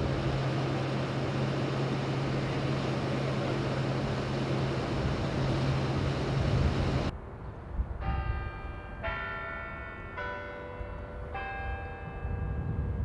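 Steady low engine hum with heavy street noise beside an idling bus. After a cut about seven seconds in, bells ring four strikes of differing pitch, about a second apart, each ringing on over quieter traffic.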